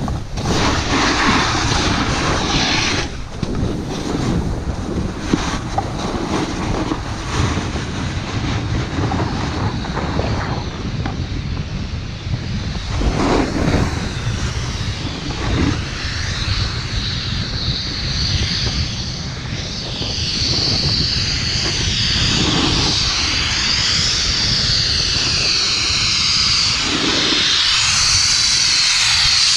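Wind buffeting the microphone in a steady rumble while a snowboard slides and scrapes over snow, with a louder hiss of edges on snow from about two-thirds of the way through.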